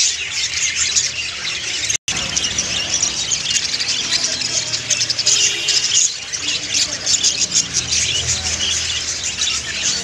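A flock of budgerigars chattering and warbling all at once: a dense, continuous high twitter with squawks mixed in. It breaks off for an instant about two seconds in.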